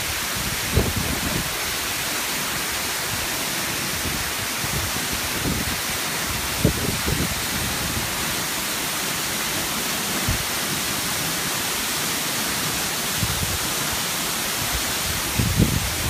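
Waterfall: a steady, even rush of falling water plunging onto rocks and into a pool. A few brief low thuds come about a second in, around seven seconds in and near the end.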